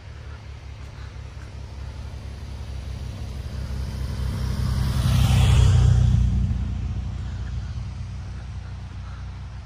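A car passing by: its engine and tyre noise swell to a peak about six seconds in and then fade, over a steady low rumble.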